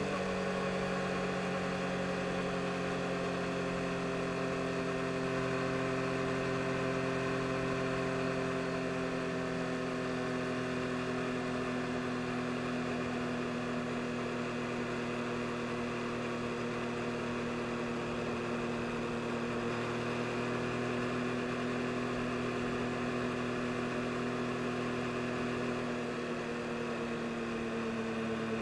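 2022 Yamaha MT-09 SP's inline three-cylinder engine running at a steady cruise under light throttle. Its pitch sags slowly over the first dozen seconds, then holds nearly level, with a slight dip in loudness near the end.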